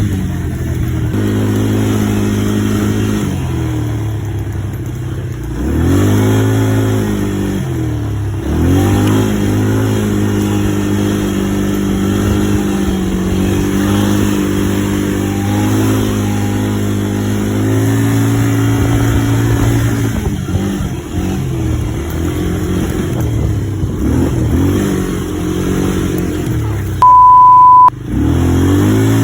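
ATV engine running while riding, its pitch dropping and climbing again a few times as the throttle is eased off and opened. Near the end, a loud steady beep lasts about a second.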